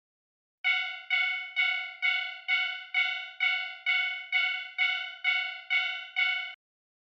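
Japanese railroad crossing warning bell ringing its "kan-kan" alarm: about thirteen evenly spaced, ringing strikes, a little over two a second, starting about half a second in and stopping suddenly near the end.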